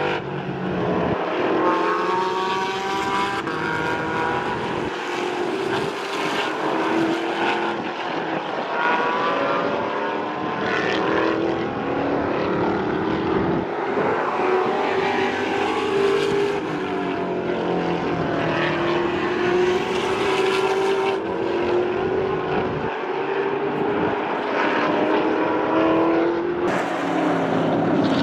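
Race car engines running on a road circuit, each one climbing in pitch and dropping back at the gear changes, with several engines overlapping.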